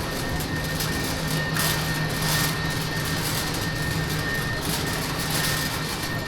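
Steady mechanical hum and rushing noise of a large warehouse store's ventilation and refrigeration, with a faint thin high tone and a few brief hissy swells.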